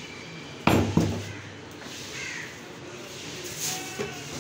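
Butcher's cleaver chopping goat meat on a wooden log chopping block: two heavy chops in quick succession about a second in, then a lighter knock near the end.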